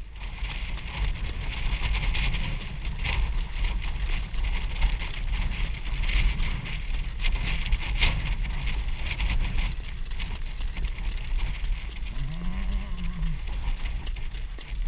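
Wind rumbling on the microphone of a sulky-mounted camera while a harness horse jogs ahead, with its hooves and the sulky wheels on the dirt track underneath. A short low tone rises and falls about twelve seconds in.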